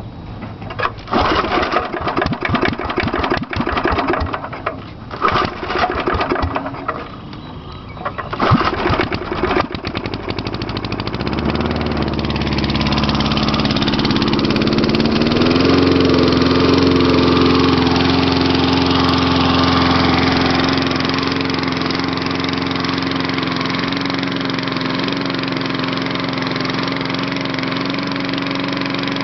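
Propane-fuelled Briggs & Stratton lawnmower engine being pull-started: several seconds of irregular clattering pulls, then the engine catches about eleven seconds in. It runs unevenly at first, speeds up at around sixteen seconds and settles into a steady run.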